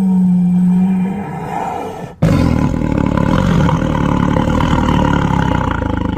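A cat making an odd low-pitched call held steady for about a second, then, after a brief break, a long rough growl.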